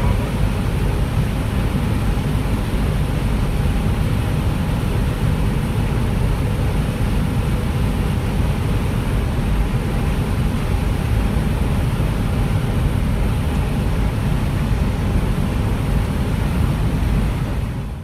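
Corn harvesting machinery running steadily: a constant loud low rumble with a mechanical hiss above it, cutting off abruptly at the very end.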